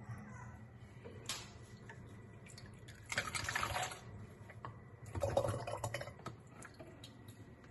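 Ladlefuls of amazake, rice grains in liquid, poured through a funnel into a plastic bottle: two splashing pours about three and five seconds in, each about a second long, after a brief knock about a second in.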